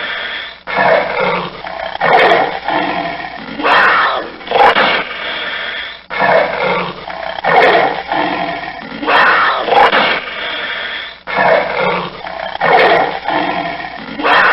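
Panther roaring in a series of loud calls a second or two apart, the same sequence repeating about every five seconds as a loop.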